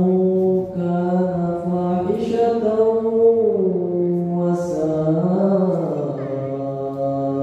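A man's voice chanting Arabic in long, slow, melodic held notes that slide between pitches, in the style of Quranic recitation.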